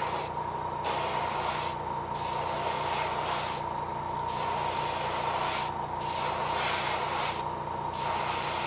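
Airbrush spraying paint onto a crankbait in bursts of a second or so with short breaks, over the steady hum and whine of its small air compressor.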